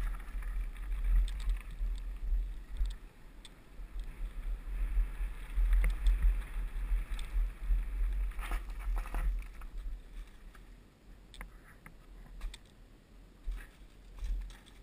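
Wind buffeting a helmet-mounted action-camera microphone while a Cube hardtail mountain bike rolls down a gravel and dirt track, its tyres crunching and the frame and chain rattling with scattered clicks. The rumble dies down after about ten seconds as the bike slows to a stop.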